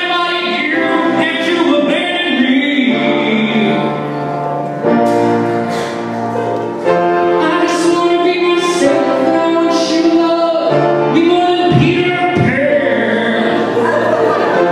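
A man sings a theatrical song into a handheld microphone over instrumental accompaniment with steady, sustained low notes.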